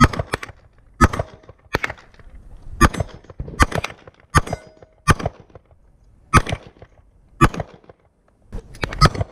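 Gunshots from a semi-automatic pistol fired in a steady string, one sharp crack after another, about one to two shots a second.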